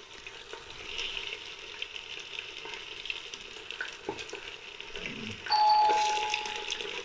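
Raw chicken pieces sizzling as they drop into hot oil in a clay handi. About five and a half seconds in, the sizzle suddenly gets louder, and a steady ringing tone starts and holds to the end.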